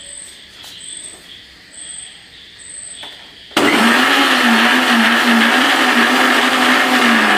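Electric mixer grinder starting abruptly about three and a half seconds in and running at full speed, grinding a coarse mint-and-coconut chutney with only a little water. Right at the end it is switched off and its pitch begins to fall as the motor spins down.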